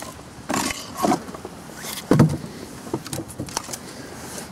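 Split firewood being handled at a woodpile: a few irregular knocks and rustles, the loudest about two seconds in.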